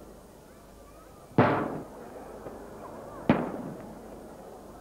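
Traditional Maltese colour aerial firework shells bursting: two sharp bangs about two seconds apart, each followed by a fading echo.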